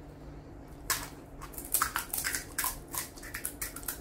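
Crisp, hollow panipuri (puchka) shells cracking and crunching as they are broken open and eaten. About a second in, a quick, irregular run of sharp crackles starts.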